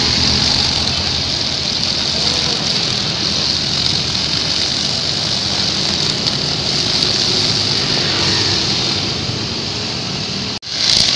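Honda GX four-stroke backpack brush cutter running steadily at high speed, its nylon trimmer line whirring through grass, with road traffic behind it. The sound drops out for an instant near the end.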